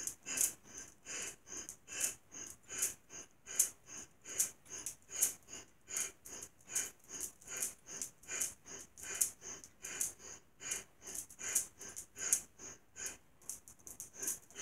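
Rapid, forceful breathing in and out through the nose, in an even rhythm of about three strokes a second: bellows breath (bhastrika pranayama), with each exhale pushed out as the arms come down.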